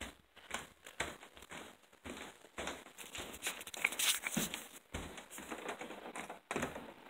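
Handling noise from a phone being carried and swung about: irregular rustles, rubs and small knocks on the microphone.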